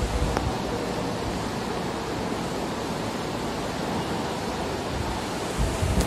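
Orient New Breeze 1200mm ceiling fan running, a steady rushing hiss of air, with a brief low buffeting near the end.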